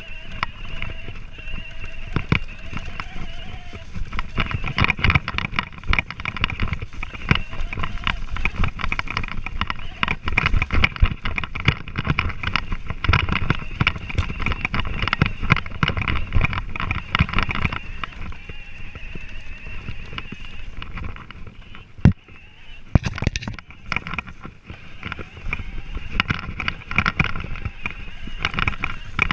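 Revvi 16 Plus electric balance bike ridden over bumpy grass: a steady high whine from its electric motor under a constant rattle and knocking of the bike and camera mount over the bumps. It eases off for a few seconds past the middle, with a sharp knock about 22 seconds in, then picks up again.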